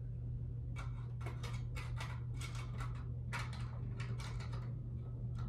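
Plastic smoke detector being handled and fitted together: irregular runs of small clicks and rattles, over a steady low hum.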